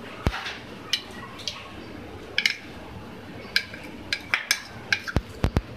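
Metal spoon clinking and scraping against a dish while scooping ginger-garlic paste, in irregular light clicks. There are a few sharper knocks, one about a quarter second in and three close together near the end.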